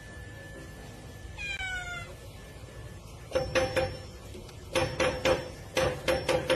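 A cat meows once, falling in pitch, then rattles a metal sliding door bolt with its paws in three short bursts of clattering, ringing clicks.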